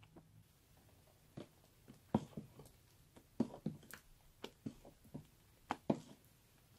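Fingers pressing and poking into fluffy slime, making irregular sticky clicks and small pops, about a dozen of them.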